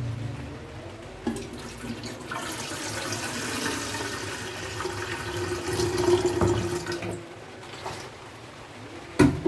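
Water poured from a container into an aluminium kettle, splashing steadily with a held filling note. The pour stops about seven seconds in, and a sharp knock follows near the end.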